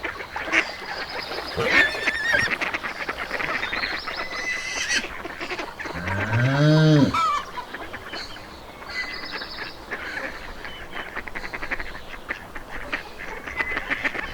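Farmyard animals: geese honking and other poultry calling over and over. The loudest sound is one low, drawn-out animal call about six seconds in that rises and then falls in pitch.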